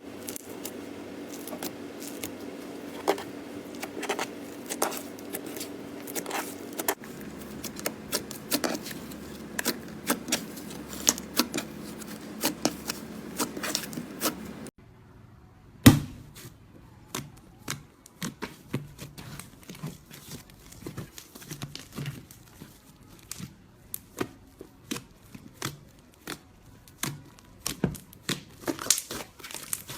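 Slime being pressed and pulled, a dense run of small crackling clicks and pops, with a sharp loud snap a little past the middle. The background changes abruptly twice as the clips cut.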